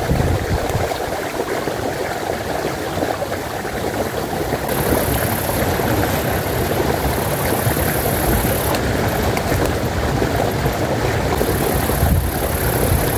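Steady rushing of flowing river water, with a shifting low rumble on the microphone; a high hiss comes in twice over it.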